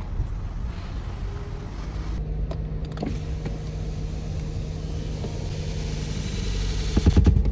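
Low outdoor background rumble, cut off about two seconds in by the inside of a moving car: a steady engine and road hum, which swells into a louder low rumble with a few knocks near the end.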